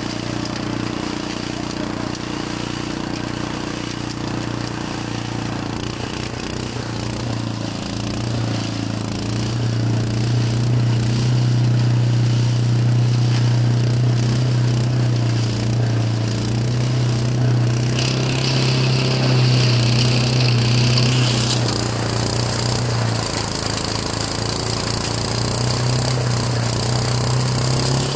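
Small engine-driven shredder running steadily, its pitch and load rising and falling as dry leaves and coconut husk are fed into the hopper and ground into fertilizer mulch. A harsher, higher grinding joins in for about three seconds past the middle.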